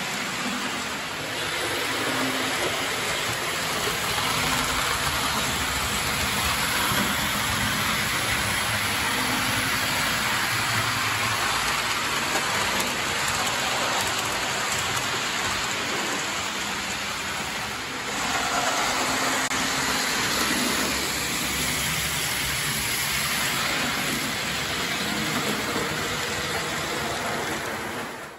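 A model electric locomotive and its coaches running on layout track: a steady, even rattle of small metal wheels on the rails with a light motor hum.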